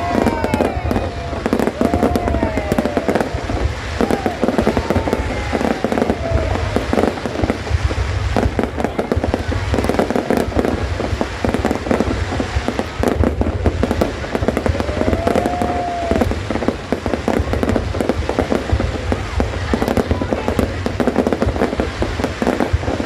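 Aerial fireworks exploding in a rapid, continuous string of bangs and crackles, with a few short sliding tones heard among them, once near the start and again partway through.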